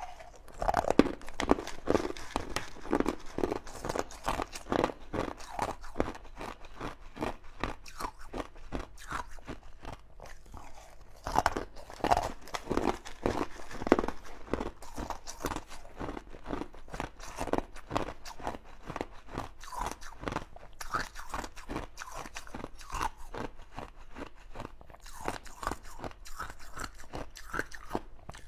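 Close-up crunching and chewing of mouthfuls of green ice cubes: a dense, irregular run of sharp crunches, bite after bite.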